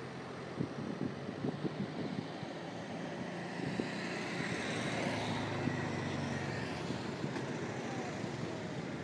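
A car passing along the street, growing louder to a peak about halfway through and then easing off, over a steady background of traffic noise. A few light taps sound in the first two seconds.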